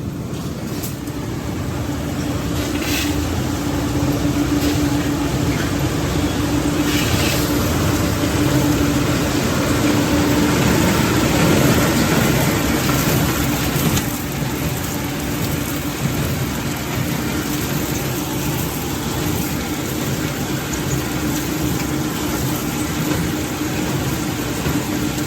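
Industrial machinery running steadily: a loud, noisy hum with a constant low tone. It grows louder over the first few seconds and eases slightly about halfway through.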